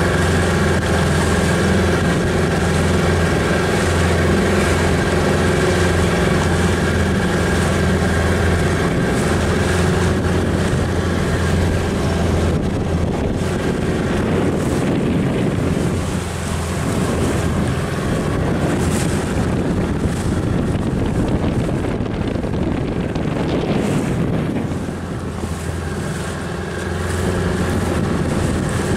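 A small inflatable dinghy's outboard motor running steadily under way, with wind buffeting the microphone and water rushing past the hull. The engine note and overall level drop briefly twice, a little past halfway and again near the end.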